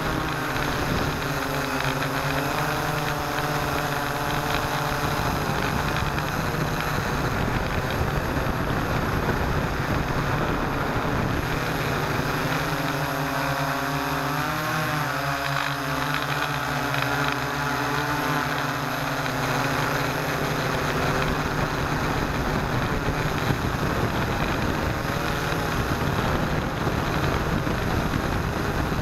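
Six electric motors and propellers of a hexcopter whirring, heard from a camera mounted on the craft: a steady, loud drone whose pitch wavers up and down as the throttle changes, a few seconds in and again through the middle.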